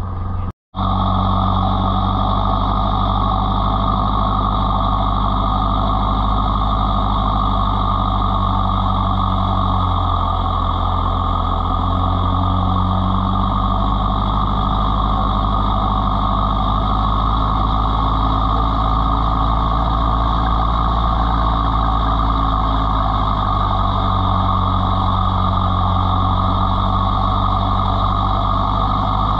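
Off-road 4x4 engine running steadily, its low note shifting a few times. A brief cut-out happens about half a second in.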